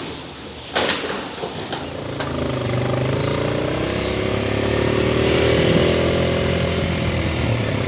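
A small petrol engine running, building up about two seconds in, its pitch rising gently and then easing off near the end.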